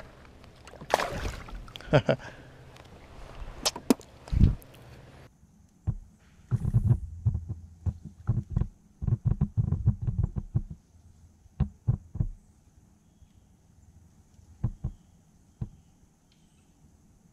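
A splash about a second in as a bass goes back into the water over the side of a plastic sit-on-top kayak, then a run of dull knocks and thumps on the kayak's hull and deck as the angler shifts his weight and stands up, thinning out near the end.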